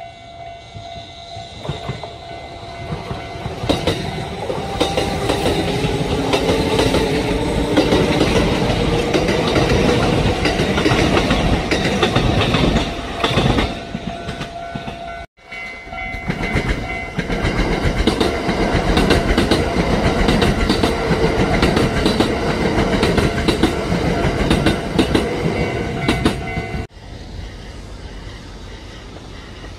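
Kintetsu electric train passing through without stopping, a loud rumble with wheels clattering over the rail joints. The sound cuts off abruptly about halfway and a second loud train pass follows, ending in another sudden cut near the end.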